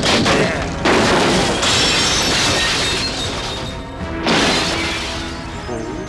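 Anime sound effects of a wooden table being hurled and smashed: three sudden loud crashes with shattering and a long noisy tail, one at the start, one about a second in and one about four seconds in, over tense background music.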